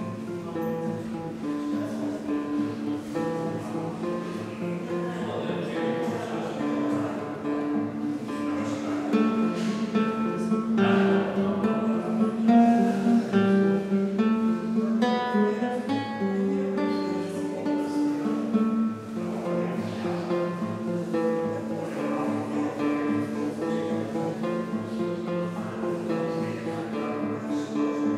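Solo classical guitar: a nylon-string guitar fingerpicked in a continuous run of plucked notes, a little louder about midway through.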